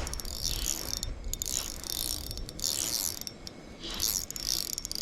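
Fishing reel clicking in short bursts of about half a second, with a quieter pause just after the middle, under load from a hooked lake trout.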